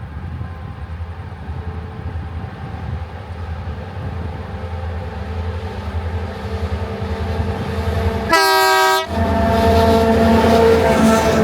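Tasrail 2050 class diesel-electric locomotives hauling a loaded coal train, their EMD 645 engines working and growing louder as the train approaches. One short horn blast comes about eight seconds in.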